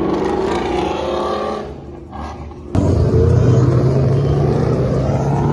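Car engine revving, its pitch climbing, then easing off around two seconds in. About three seconds in a loud engine note cuts in suddenly and holds steady.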